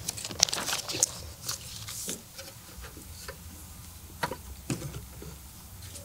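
Scattered faint clicks and knocks, about half a dozen irregular ones, over a low steady hum.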